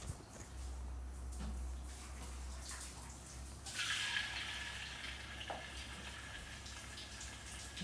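Marinated chicken pieces starting to sizzle in hot oil as they are deep-fried, a hissing that sets in about four seconds in and carries on, over a low steady hum.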